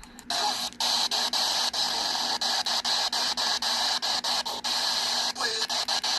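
Radio static: a steady hiss with a rapid run of sharp crackling clicks, about three or four a second.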